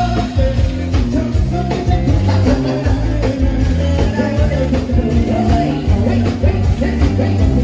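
Band music playing loudly, with a heavy stepping bass line, drum beats and a melody line over it.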